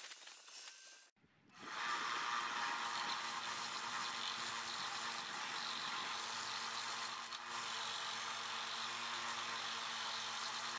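A 1-by-30-inch belt and 5-inch disc combination sander running steadily with a motor hum, as a wooden handle blank is rounded off on it. Before it, a short stretch of table-saw noise cuts off about a second in.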